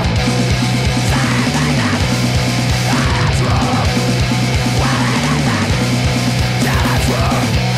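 Death metal recording: a heavily distorted low guitar riff over fast, dense drumming, the riff shifting pitch every few seconds.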